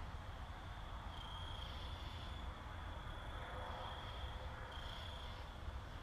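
A cricket trilling steadily at a high pitch, growing louder for stretches of about a second, over a low steady rumble of room noise.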